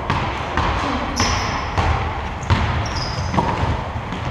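A basketball being dribbled on a court, with a bounce roughly every half second to second, and sneakers squeaking sharply on the floor about a second in and again around three seconds in.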